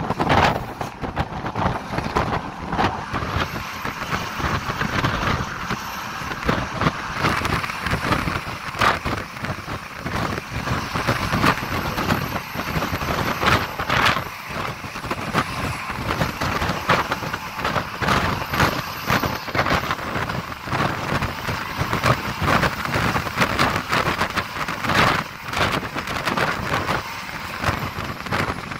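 Bus driving at speed on a highway, heard from the driver's side of the cab: steady engine, road and wind noise with frequent knocks and rattles.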